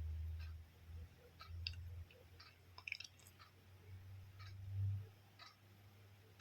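Faint steady ticking, about one tick a second, with a short flurry of small clicks about three seconds in. A low rumble swells at the start and again near the end.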